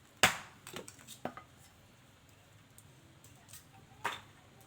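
A few sharp knocks and clicks, like small objects clattering: the loudest about a quarter second in, a couple of lighter ones around a second in, and another sharp one about four seconds in.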